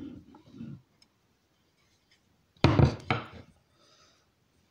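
Hultafors axe being handled and set against a wooden tabletop: soft rubbing and shifting at first, then a quick cluster of loud wooden knocks about two and a half seconds in.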